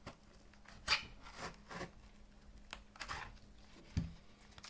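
Small pocket-knife blade cutting through a plastic blister pack and its card backing: scattered short scrapes and crackles, the sharpest a little under a second in. A dull knock comes about four seconds in.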